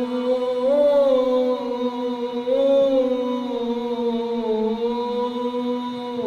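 A single voice singing one long held note with no instruments, bending slightly up and down in pitch as it is drawn out, and changing note at the very end.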